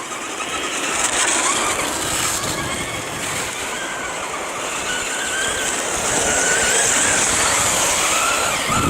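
Electric RC cars driving on a track: high-pitched brushless motor whine rising and falling with the throttle, over a steady hiss of tyres and drivetrain.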